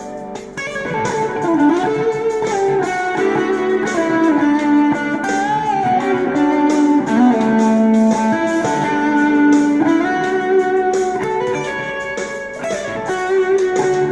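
Electric guitar played through a BOSS BD-2 Blues Driver overdrive pedal with the Keeley Phat mod, improvising a lead line in D. The line has sustained notes, string bends and slides.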